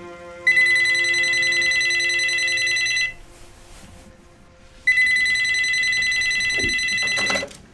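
Telephone ringing twice, each ring a fast-warbling trill about two and a half seconds long, with a pause of about two seconds between them.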